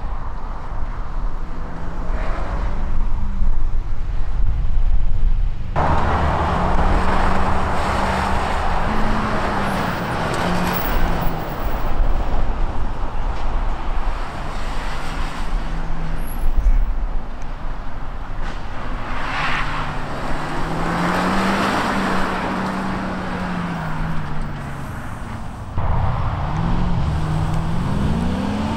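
A small hatchback's engine revving hard, its pitch rising and falling again and again with gear changes and corners, over tyre and road noise. About three seconds from the end the sound jumps to a V8-engined Triumph sports car pulling away, its revs climbing.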